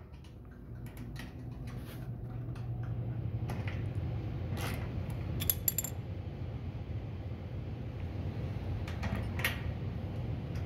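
Scattered small metal clicks and rattles as an infrared sensor bracket on a carpet cutting machine's leg is loosened and lowered by hand, with a quick cluster of sharper clicks about halfway through, over a steady low hum.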